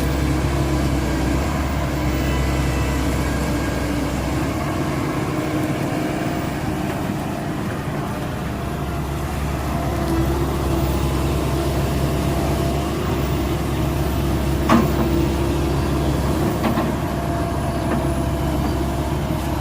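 Diesel engine of a Komatsu hydraulic excavator running steadily, its note shifting slightly with load. A single sharp clack comes about fifteen seconds in.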